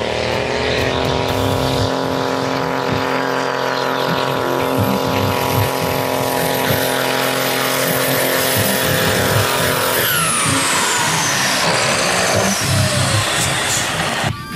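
ERF lorry's Cummins diesel engine at full throttle under a pull, its pitch held steady with a high whistle over it, then winding down about ten seconds in as the revs drop.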